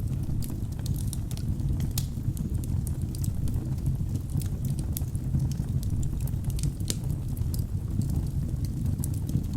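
Wood fire burning in a fireplace: a steady low rumble of flames with frequent irregular sharp crackles and pops from the burning logs.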